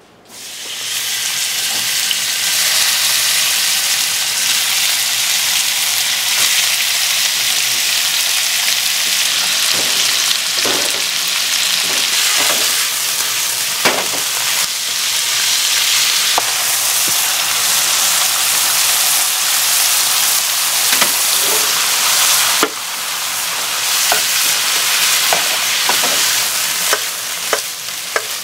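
Cubes of thick-cut pork loin sizzling loudly as they fry in hot oil in a frying pan, the sizzle swelling up within the first second as the meat goes in. Now and then a metal ladle clicks and scrapes against the pan as the meat is stirred.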